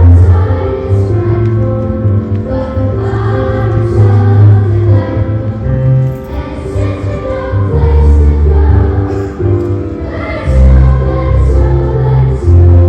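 Middle school chorus singing a holiday song with accompaniment, sustained notes over a steady bass line.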